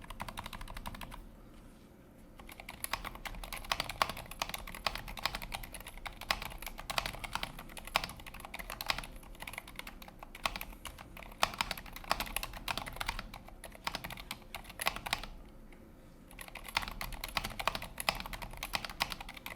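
Fast, continuous typing on a mechanical keyboard fitted with Cherry MX Silent Black switches, a dense patter of key presses. It breaks off briefly twice: a second or so in, and about three-quarters of the way through.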